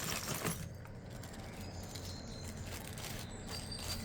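A bag of small mixed jewelry, including loose pearls, clattering out onto a surface as it is poured, the clatter ending about half a second in. After that come faint clicks of the pieces being handled, over a steady low hum.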